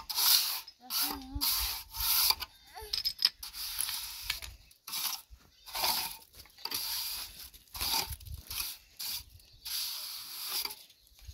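Steel hand trowel scraping and spreading wet cement mortar along the tops of concrete blocks, in short gritty strokes that come irregularly, about one a second.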